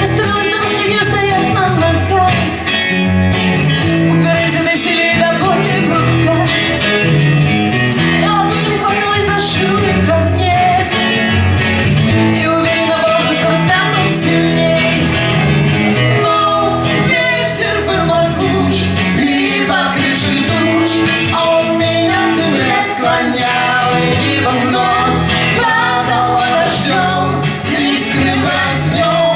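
A song played by a band: a singing voice over guitar accompaniment, steady and loud throughout.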